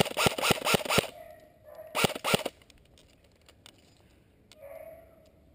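A dog barking: a quick run of barks through the first second, then two more about two seconds in.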